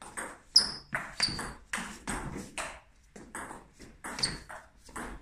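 Table tennis rally: a celluloid-type ball clicking alternately off the bats and the table after a serve, about two or three sharp hits a second, some with a brief high ring.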